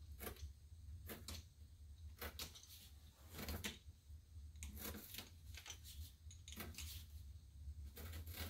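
Pounce wheel being rolled along a paper sign pattern laid on cardboard, its pins perforating the paper: a faint series of short strokes about once a second, over a low steady hum.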